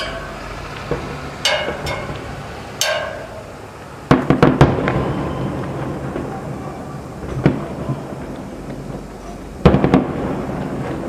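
Aerial firework shells bursting: single bangs early on, then a quick run of bangs about four seconds in with a rumble trailing after, one more bang, and another loud cluster of bangs near the end.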